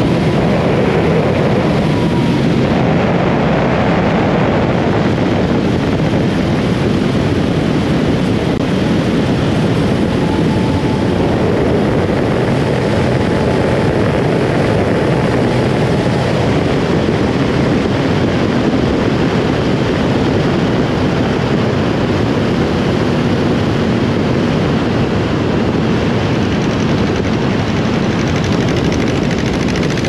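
Aeronca L-16A light plane in flight: its small four-cylinder engine and propeller running steadily, heard under a loud, even rush of wind on an outside-mounted camera.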